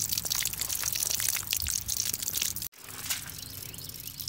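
Water spattering and dripping, with crackly crinkling handling noise. The sound cuts out for an instant just past halfway, then goes on as a quieter, steadier hiss with a faint low hum.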